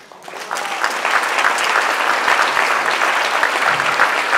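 Audience applauding: a dense, steady patter of many hands clapping that swells up over the first half second.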